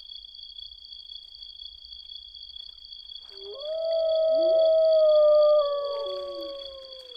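A long wailing call starts about three seconds in, rising, holding and then slowly falling, with other wavering voices gliding beneath it. A steady high two-pitched whine runs under it throughout.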